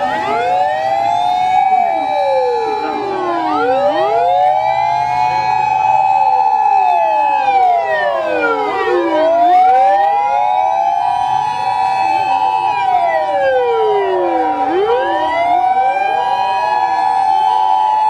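Sirens of several Japanese fire engines driving past at once. Their wails rise and fall every few seconds out of step with each other, over a steady held tone.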